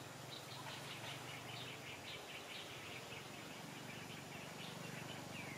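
Small birds chirping in the trees: a quick run of short high notes, with a couple of falling whistles near the end, over a steady low hum.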